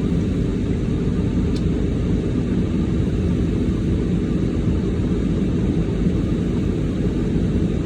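Steady low rumble of a car's cabin with the engine running.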